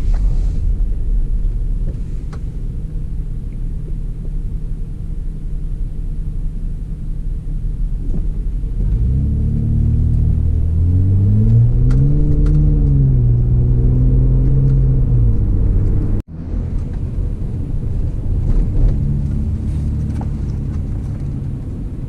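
Hyundai Azera V6 with its rear muffler loosened, heard from inside the cabin: a steady low engine and road rumble while driving. About nine seconds in, the engine note climbs as the car accelerates, holds for a few seconds and eases off. The sound cuts out for a moment about sixteen seconds in, then the rumble goes on.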